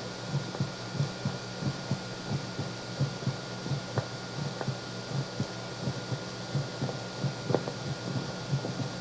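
A recorded sound effect played back from cassette on a Sony TC-520CS: a run of soft, dull, low thumps, about three a second and uneven in strength, over steady tape hiss.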